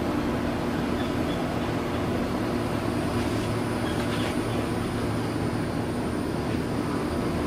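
A steady machine hum with an even rush of noise behind it, unchanging throughout.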